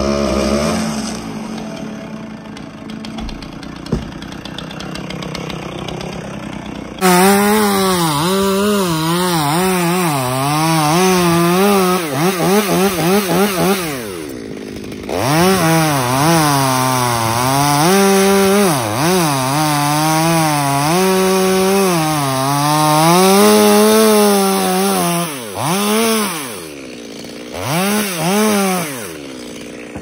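Chainsaw cutting into a coconut palm trunk. The engine's pitch wavers up and down as it works under load in the cut. It gets much louder about a quarter of the way in and eases off briefly a few times.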